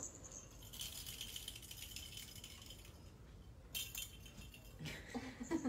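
Faint rattling of small cat-toy balls as kittens play among them, one longer spell starting about half a second in and a short one near four seconds.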